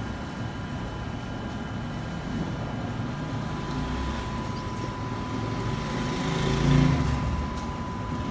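Low traffic rumble from the street, swelling as a vehicle passes about seven seconds in, with a faint steady high whine throughout.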